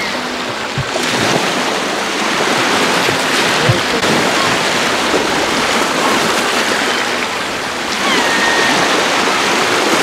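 Small waves washing and breaking on the shore in a steady rush, with a gull calling once near the end.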